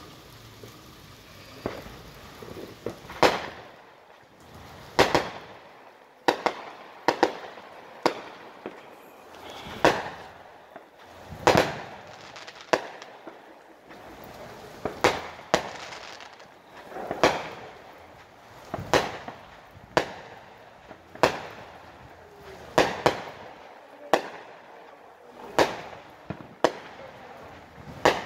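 Fireworks going off in the neighbourhood: a string of sharp bangs at irregular intervals, about one every second or two, varying in loudness, some echoing.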